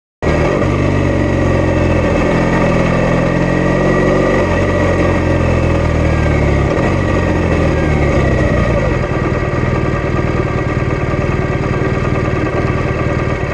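BMW R1200RS boxer-twin motorcycle engine running as the bike is ridden at low speed, its pitch changing in steps about 2, 4.5 and 7 seconds in.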